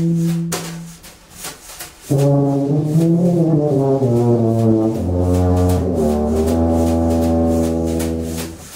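Tuba and tenor saxophone playing long held notes: a held chord breaks off about a second in, and after a short lull the horns come back with slow sustained phrases over a low tuba note that holds from about halfway.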